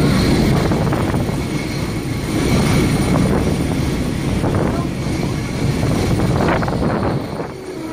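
Diesel passenger train running along the track, heard from a seat by an open window: a steady rumble of engine and wheels mixed with wind noise, easing slightly near the end.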